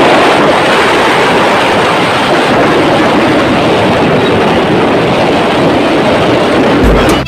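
Loud, steady rush of wind buffeting a phone's microphone while riding a motorbike along a road, with no distinct engine note standing out; it starts and cuts off abruptly.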